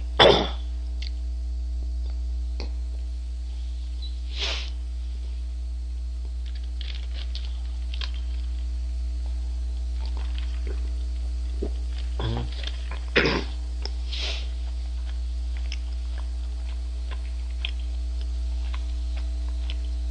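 A person eating a burger meal close to the microphone: a handful of short, noisy mouth sounds, the loudest right at the start and a pair about two-thirds through. A steady low electrical hum runs underneath.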